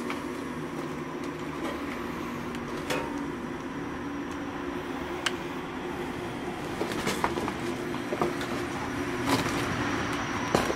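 Footsteps on broken floorboards and debris, with a few scattered sharp cracks and creaks, over a steady low hum.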